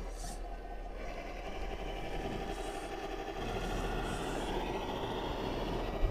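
1:10-scale RC crawler driving through snow, its on-board sound module playing a steady engine sound along with the electric motor and drivetrain running. A thump comes right at the end.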